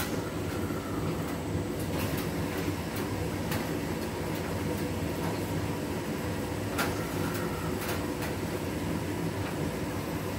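Hotpoint front-loading washing machine on a 40 °C cotton wash, its drum turning a soaked dog bed through the water: a steady mechanical rumble with faint clicks and knocks now and then, one sharper knock a little before the end.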